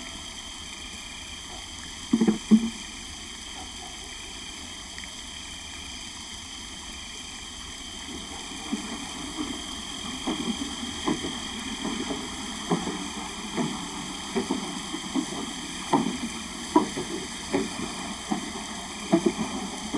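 Quiet ambience with a brief louder double knock about two seconds in, then, from about eight seconds in, a series of soft irregular footsteps on a staircase.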